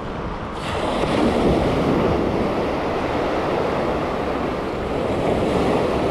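Ocean surf washing up the beach, with wind on the microphone; the wash swells about a second in and stays up.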